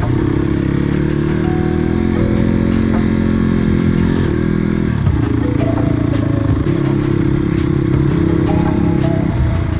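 Dirt bike engine running under way at a steady pace. Its note sags a little before halfway, dips sharply, then picks up again, with scattered light clicks over it.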